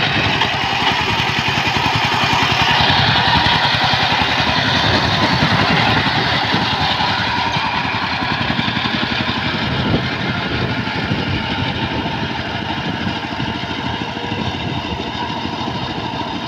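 Single-cylinder diesel engine of a walking power tiller running with a fast, even chugging beat as the tiller drives across a flooded paddy. It grows gradually fainter after about six seconds as the machine moves away.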